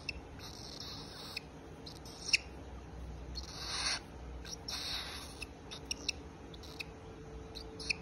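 A young cockatiel being scratched on the head and neck by fingers. Short hissy bursts of rubbing on its feathers come with scattered sharp clicks, the loudest about two seconds in.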